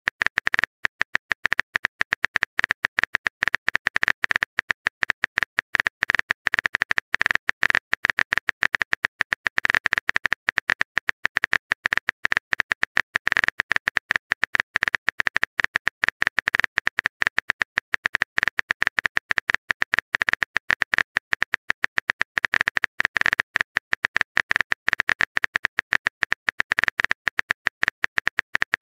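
Synthetic phone-keyboard typing clicks in a rapid, even stream, many a second, as a chat message is typed out letter by letter.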